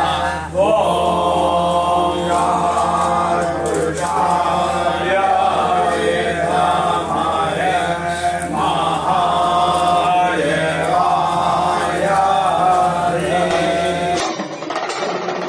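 Devotional chanting in sung phrases over a steady low hum. About fourteen seconds in it cuts off abruptly and a rushing noise takes over.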